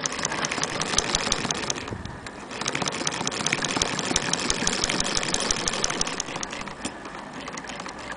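Antique James G. Weir hand-cranked sewing machine (c. 1868) stitching through fabric: an even, rapid clatter of ticks, several a second. It breaks off briefly about two seconds in, then grows fainter and sparser near the end.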